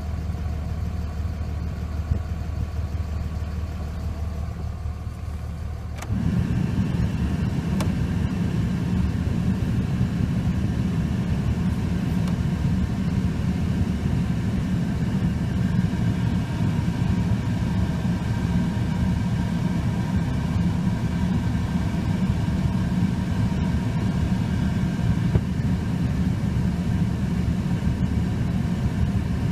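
5.9-litre Cummins turbo-diesel straight-six idling, heard from inside the Dodge Ram 3500's cab. About six seconds in, a louder, steady rush of air from the heater blower comes in and runs on over the engine.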